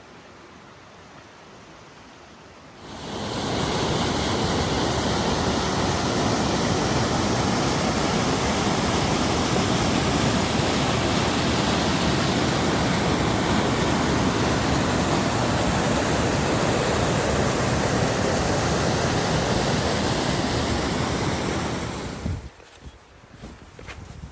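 Steady rush of falling water from a waterfall, loud and even, starting suddenly about three seconds in and cutting off near the end, with a fainter stream before it.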